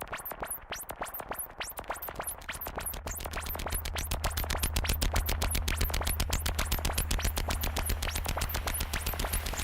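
Electronic music building up: a quickening run of sharp synthetic ticks over a low bass that swells in and grows steadily louder.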